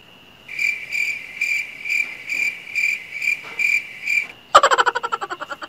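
Cricket-chirp sound effect, about two chirps a second for nearly four seconds, the comic cue for an awkward silence while nothing happens. It is followed by a sudden, louder rapid rattle that fades within about a second.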